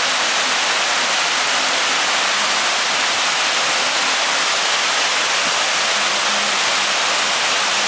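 Steady rush of a waterfall, water pouring down a stepped rock face and splashing onto the boulders below.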